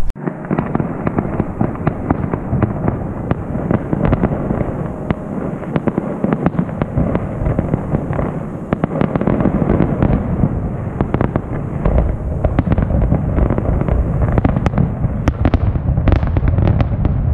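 Fireworks display going off: a dense run of crackles, pops and bangs, joined by a heavier low rumble in the last few seconds.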